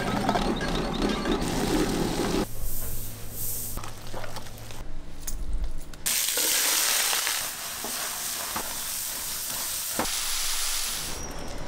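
Cut apple chunks tumbling from a steel bowl into a pot of water, then a steady high hiss like food sizzling, lasting several seconds before it fades near the end.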